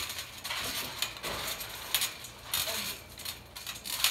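Trampoline springs jangling with a metallic clink and the mat thudding several times as people bounce and fall on it.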